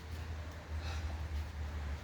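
Low, steady hum under faint room noise.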